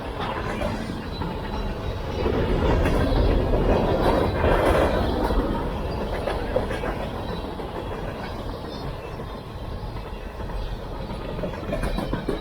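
Mixed freight train cars rolling past, wheels clacking over the rail joints. The noise swells about two seconds in and eases off after the middle.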